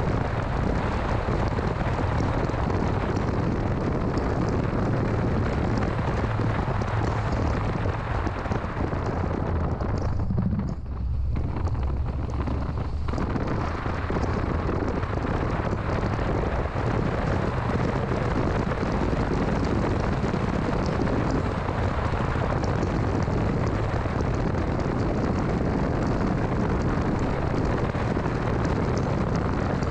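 2006 Mini Cooper S on the move: a steady dense noise of engine, tyres and wind with a low engine hum underneath. About ten seconds in, the high hiss falls away for roughly three seconds, leaving mostly the low hum, then returns.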